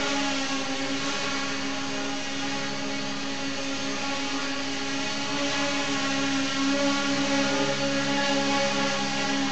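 Tricopter's three 1000KV brushless motors spinning 8x4.5 propellers in flight, a steady multi-toned whir whose pitch wavers slightly.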